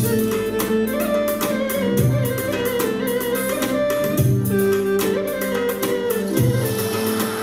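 Live oriental dance music played on a Korg synthesizer keyboard: a string-sounding melody over a steady percussion rhythm, with the low notes changing about every two seconds.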